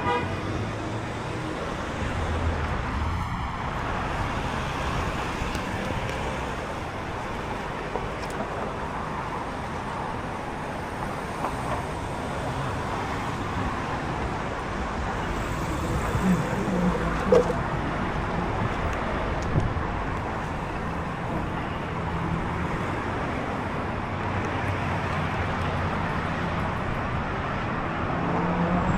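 City street traffic: cars running and passing, with a steady wash of road noise and a few brief pitched sounds around the middle.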